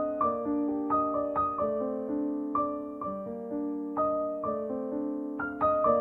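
Background instrumental music: a gentle piano playing slow notes, about two a second, each left to ring and fade.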